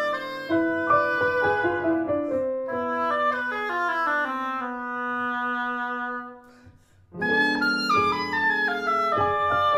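Instrumental background music: a melody moving in steps over held lower notes. It fades almost to silence for about a second, two-thirds of the way through, then comes back in.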